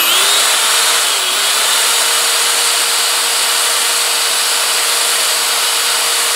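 Black & Decker drill spinning a World's Finest Trimmer whose cutter is shaving a .223 brass case down to 300 Blackout length: a steady motor whine under a loud hissing grind of metal being cut. The drill picks up speed over the first second, then holds steady.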